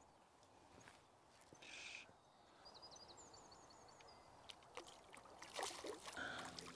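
Hooked brown trout splashing and thrashing at the water's surface in the last couple of seconds as it is drawn into a landing net. Before that it is near quiet, with a bird briefly chirping a quick run of high notes about three seconds in.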